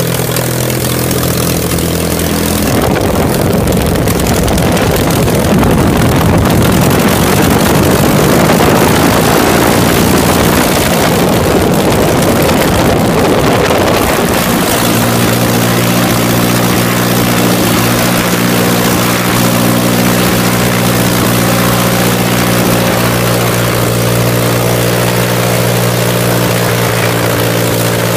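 Piston aircraft engine on a test-stand trailer, fitted with a Rotec throttle-body injection unit, running a propeller. It opens up about three seconds in, runs at higher power for about eleven seconds, then drops back to a steady, lower speed.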